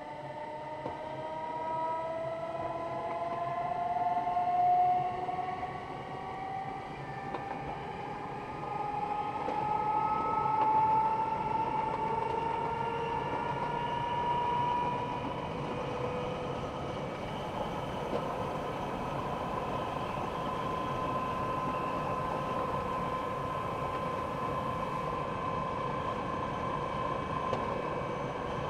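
Electric metre-gauge train's traction motors whining, the whine rising in pitch over the first fifteen seconds or so as the train gathers speed, then holding steady, over a steady rumble of wheels on rail. Heard from the driver's cab.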